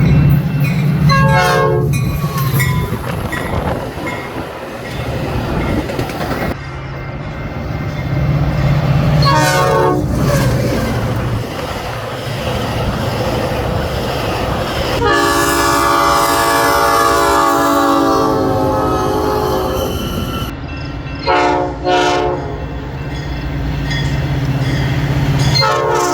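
Metra F40 diesel locomotive air horns sounding in several loud blasts, one held for about five seconds in the middle, over the steady low drone of the locomotive's diesel engine and the clatter of train wheels on the rails.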